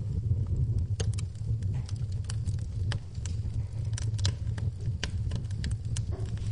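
Wood fire in a fireplace crackling, with sharp irregular pops several times a second over a steady low rumble of the flames.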